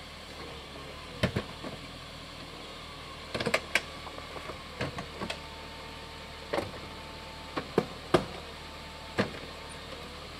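Mercedes-Benz SL 500 (R129) electro-hydraulic soft top opening: a string of sharp clicks and clunks from the latches and folding mechanism over a faint steady whine of the hydraulic pump. The car's V8 idles underneath as a low hum.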